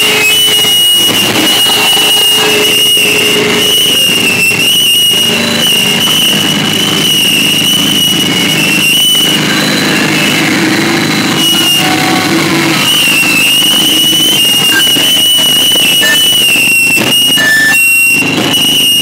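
Live harsh noise music from effects pedals and electronics: a loud, dense distorted roar with a shrill, wavering feedback whine held above it, dropping out briefly a few times.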